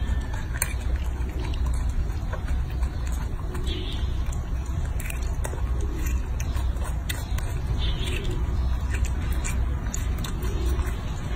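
Baby monkey eating longan fruit: scattered small clicks and smacks of chewing and handling the peeled fruit, over a steady low rumble.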